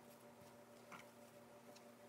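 Near silence with a few faint, soft taps as stuffed deep-fried tofu pouches are set into an aluminium saucepan, over a faint steady hum.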